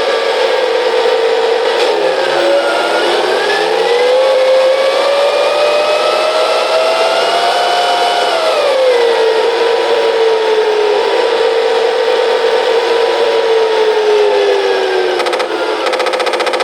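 Simulated M1 Abrams gas-turbine engine sound played by a DasMikro RC tank sound module: a steady turbine whine that dips briefly about two seconds in, rises steadily for about four seconds as if spooling up, drops sharply back to its idle pitch, then eases slightly lower near the end.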